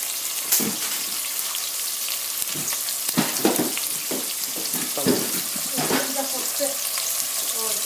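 Food sizzling in a hot frying pan for curry, a steady hiss broken by a few sharp knocks of a utensil against the pan.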